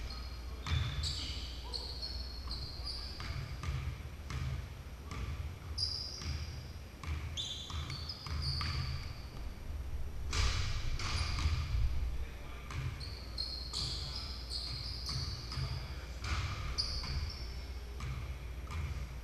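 Basketballs bouncing on a hardwood gym floor, repeated irregular thuds through the whole stretch, with short high sneaker squeaks on the court, echoing in a large gymnasium.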